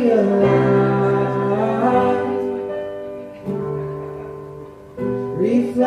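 Live worship band playing a slow song: acoustic guitar and keyboard chords changing every second or two under long held sung notes.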